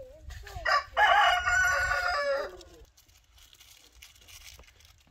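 A rooster crowing once: a loud cock-a-doodle-doo about a second and a half long, starting about a second in.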